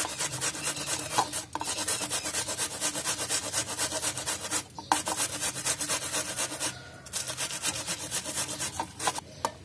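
Cabbage being grated on a hand-held stainless steel grater: fast, even rasping strokes with short pauses every couple of seconds.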